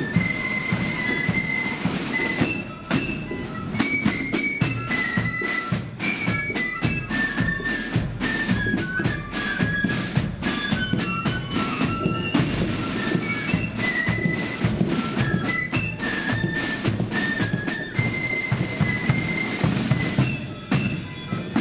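Marching flute band playing: flutes carry a high melody over steadily beaten snare and bass drums.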